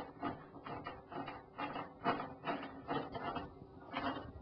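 Irregular light clicks and knocks of microwave oven door and hinge parts being handled during disassembly.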